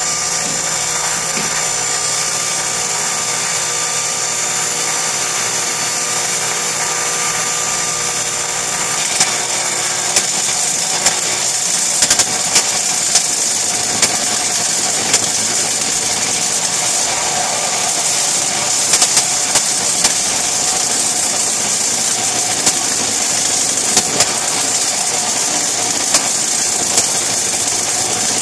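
Table saw spinning a wooden bowl blank while a jig-mounted router cuts into it: a loud, steady power-tool whine with cutting noise. Sharp knocks come at irregular intervals from about ten seconds in. The blank is not perfectly centred, so it runs with a lot of vibration.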